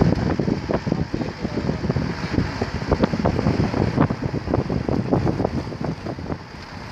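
Wind buffeting the microphone from a moving vehicle: an irregular low rumble with gusty thumps that eases a little near the end.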